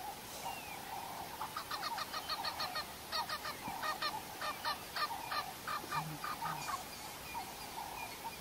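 An animal giving a rapid series of short honking calls, about four or five a second, for some four seconds over a steady background hum, followed by two short low sounds.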